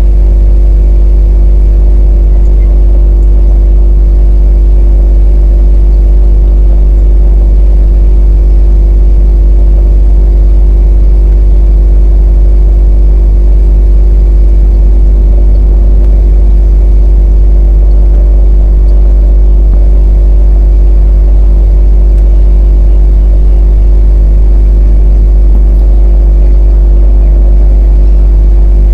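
Drone hovering: a steady electric-motor and propeller hum with a deep rumble underneath and a few steady tones, loud and unchanging.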